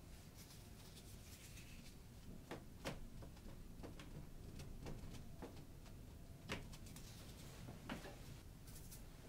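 A small painting tool scraping and tapping on a painted board: faint scratchy strokes, then a series of sharp taps, the loudest about three, six and a half and eight seconds in.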